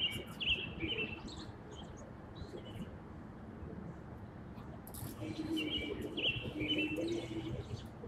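Handcuffs clinking and ratcheting, picked up by a phone left recording during an arrest. Short metallic rings and clicks come in two clusters, one right at the start and one from about five seconds in.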